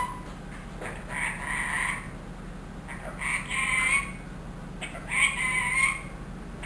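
Ringneck parrot vocalising: three drawn-out calls of about a second each, evenly spaced about two seconds apart.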